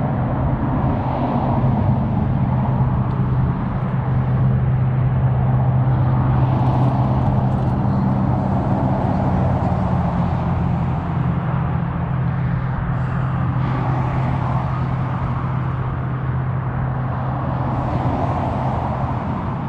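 Steady drone of road traffic on a nearby highway, a low hum with a constant pitch under broad road noise.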